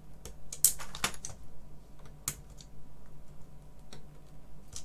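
Sharp plastic clicks and clacks of a BBC Master computer keyboard's bare key switches and frame being pressed and prised at by hand, about eight of them at uneven intervals, over a faint steady low hum.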